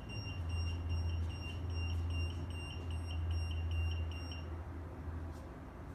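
Ryobi garage door opener beeping rapidly, about four short high beeps a second, over a low steady hum, as it refuses to close the door; the beeping stops about three-quarters of the way through. The owner suspects a programming issue.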